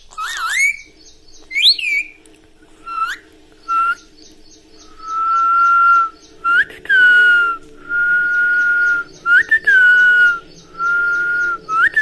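A few quick, gliding chirps from an Indian ringneck parakeet, then a run of long whistled notes held at one steady pitch, several starting with a quick upward flick, whistled by a person to get the parrot to copy them.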